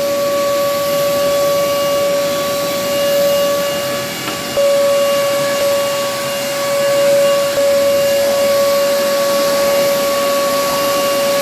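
Canister vacuum cleaner running as its floor tool is pushed over a carpet: a steady high motor whine over rushing air.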